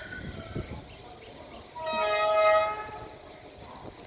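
Horn of the SE4 passenger train's diesel locomotive sounding a warning as it approaches: a brief note, then a short blast of a steady multi-tone chord lasting under a second, about two seconds in.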